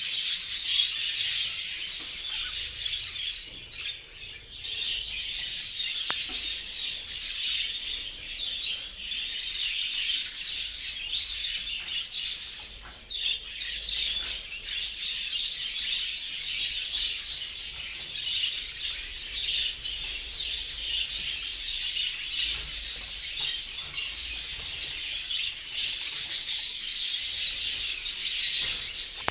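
A flock of budgerigars chattering without pause, many fast high chirps and warbles overlapping.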